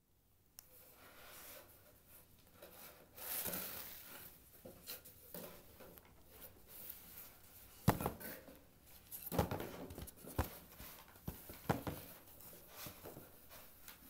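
Quiet handling sounds: light rustling with scattered sharp knocks and clicks, the sharpest coming one after another about a second apart in the second half.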